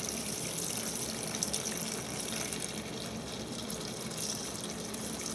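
Lacquer thinner pouring in a steady stream from a metal can into a plastic tub, splashing onto a wooden saw handle as the liquid fills the tub.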